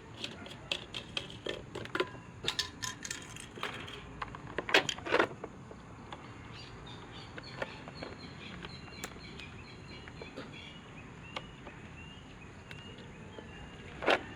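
Small clicks and clinks of tools and metal fan parts being handled, with two louder knocks about five seconds in, then fewer clicks later. Faint high chirps repeat steadily in the second half.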